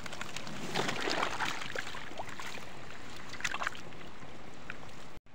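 Live trout flapping and splashing in water in a metal wheelbarrow as a net of fish is tipped in and handled, with one strong burst of splashing about a second in and another past three seconds.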